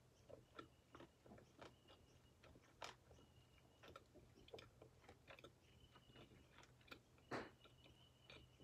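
Quiet close chewing of barbecue-glazed chicken wings: soft, irregular clicks and smacks, with a louder one about seven seconds in. Several brief faint high squeaks and a steady low hum run underneath.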